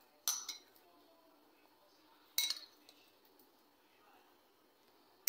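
A metal spoon clinking a few times against a small bowl, the loudest clink about two and a half seconds in, with a brief ring.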